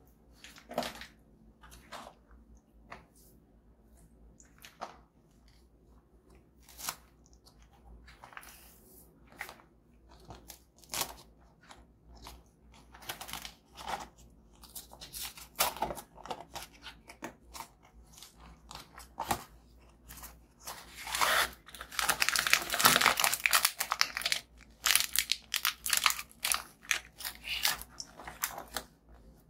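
Plastic snack wrappers crinkling and being torn open, with crunching. Scattered short crackles grow into dense crinkling about two-thirds of the way through.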